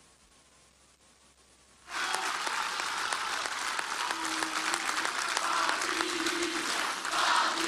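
Near silence for about two seconds, then a large crowd suddenly breaks into loud applause, with voices rising through it toward the end.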